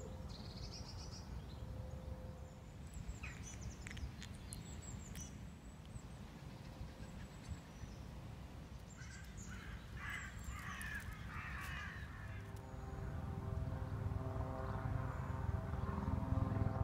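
Outdoor ambience: a steady low rumble, with birds calling, including a run of harsh, caw-like calls about ten seconds in. In the last few seconds a steady drone with several tones comes in and grows louder.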